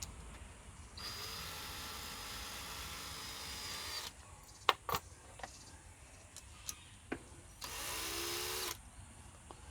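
Cordless drill-driver running in two bursts, about three seconds and then about one second, with a few light clicks in between, spinning the screws of worm-drive hose clamps on a patched water pipe.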